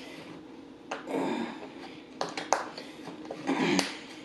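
Lid of a round paper takeaway soup container being worked loose by hand: a few sharp clicks and the rustle of the paper lid.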